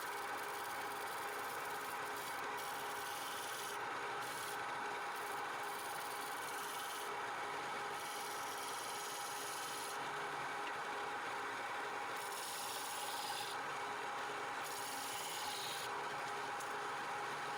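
Wood lathe running while a turning tool scrapes the spinning wood: a steady rasping hiss over a constant hum.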